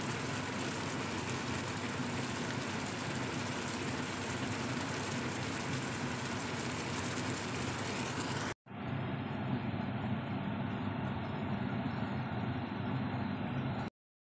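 Pan of Thai green curry simmering uncovered on the hob, a steady bubbling noise. It breaks off for a moment about two-thirds through, comes back duller, and stops abruptly just before the end.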